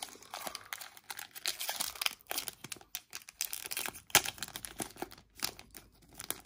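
A trading card pack's wrapper crinkling and crackling irregularly as it is handled and torn open, with a sharp crackle about four seconds in.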